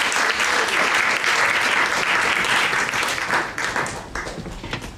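Theatre audience applauding, many hands clapping at a steady level, then thinning out and fading over the last second or so to a few scattered claps.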